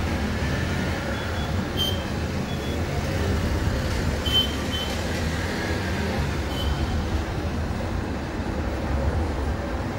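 Steady low rumbling background noise, with a few faint short high chirps about two, four and a half and six and a half seconds in.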